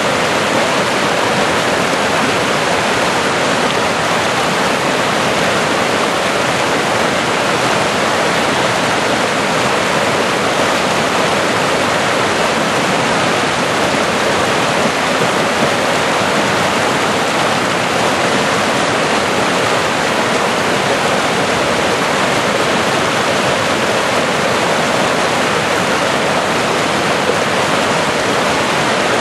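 Swift, rain-swollen mountain stream rushing over granite boulders in small cascades, a steady loud rush of white water.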